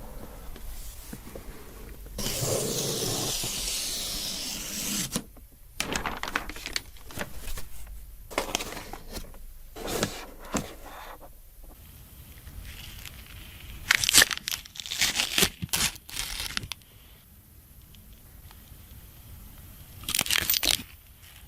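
Packaging being torn open and crinkled while a CPU cooler is unboxed: a long ripping tear about two seconds in, then irregular rustles and light clicks, with sharper crinkling bursts near the middle and again near the end.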